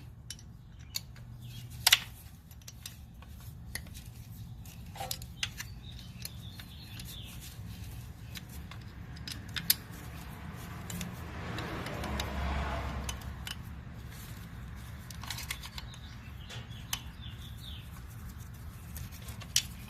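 Scattered light metallic clicks and taps of hand tools working at a rear brake caliper and its parking-brake actuator, with a low rumbling swell about eleven to thirteen seconds in.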